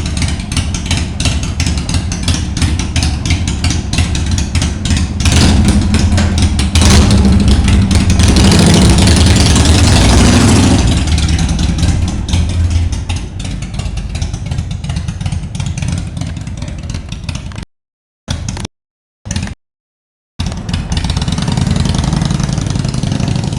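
Harley-Davidson Sportster 883R's air-cooled V-twin running loud. The revs come up about five seconds in and stay high until about eleven seconds, then settle back. The sound cuts out in short gaps about three-quarters of the way through.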